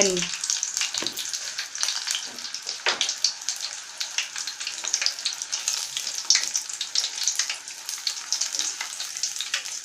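Battered shrimp deep-frying in hot oil: a steady sizzle with dense crackles and a few louder pops, one about three seconds in.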